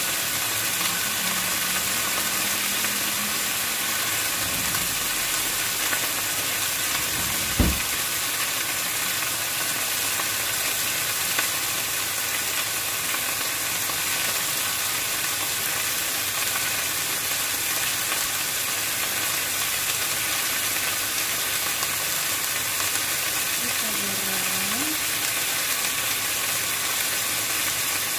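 Beef chunks searing in a hot enamelled cast-iron casserole, a steady sizzle. A single dull thump about eight seconds in.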